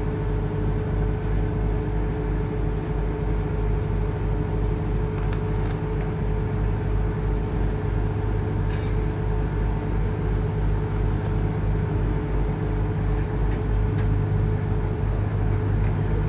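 Excursion boat's engine running steadily under way, a low even hum with a slight regular throb.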